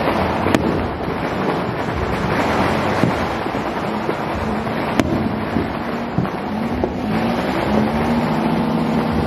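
Steady din of many distant New Year fireworks and firecrackers going off together, with single sharp cracks about half a second in and again around five seconds in.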